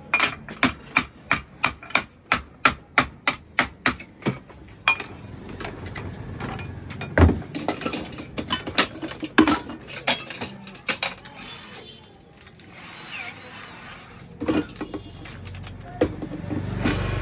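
Hammer blows, evenly spaced at about three a second for the first five seconds, then irregular knocking and clatter of tools on cookware during a repair. Near the end a small electric motor starts running.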